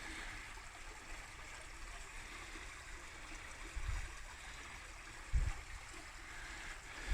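Steady rushing of a bike ride on a trail: tyres rolling and wind across a hand-held phone's microphone. Two short low wind thumps come about four and five and a half seconds in.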